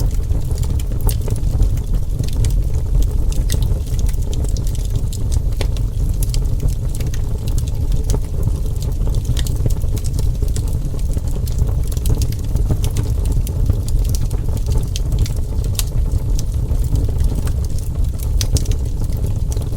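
Burning wood fire crackling: a steady low rumble with frequent short, sharp pops and crackles scattered irregularly.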